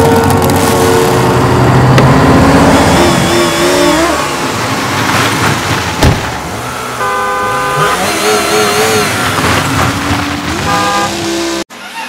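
Cars speeding past with engine and road noise, overlaid with car horns honking: a held chord-like blast about seven seconds in and a shorter one near the end. The sound cuts off abruptly just before the end.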